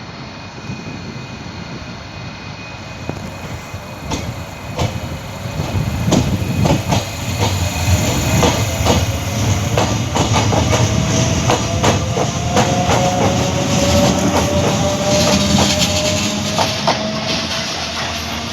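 Train passing close by, its wheels clattering over rail joints in quick clicks that grow louder about five seconds in, over a steady rumble and a thin whine that rises slowly in pitch.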